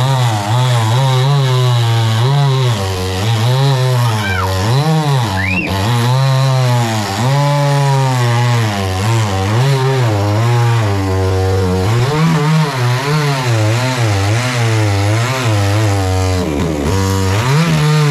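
Chainsaw running hard while cutting a coconut palm trunk. Its engine pitch rises and falls over and over as the chain bites and eases.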